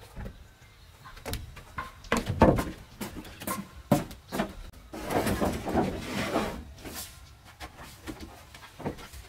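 Sawn wooden boards knocking and sliding against each other and the plank floor as they are handled and stacked: scattered sharp knocks, with a longer stretch of scraping about five seconds in.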